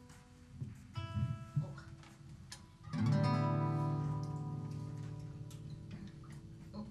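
Acoustic guitar: a few single notes plucked, then a full chord strummed about three seconds in and left to ring out.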